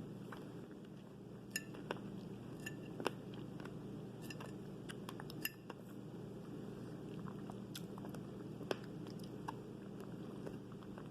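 Someone eating fresh fruit: close chewing and biting with scattered sharp clicks, a few of them louder, over a steady low hum.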